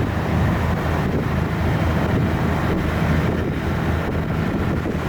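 A tour boat's engine running steadily with a low hum, with wind buffeting the microphone.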